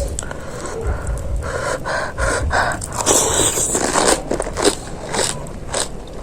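A person eating panipuri: the crisp puri shells crunch in the mouth, heard as a run of short crunches, and chewing continues between them.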